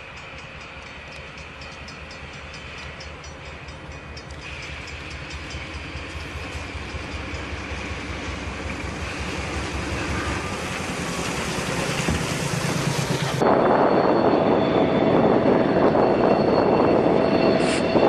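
Diesel locomotive pushing a wedge snow plow along the track, growing steadily louder as it approaches. About thirteen seconds in, the sound cuts abruptly to a louder, steady rumbling noise.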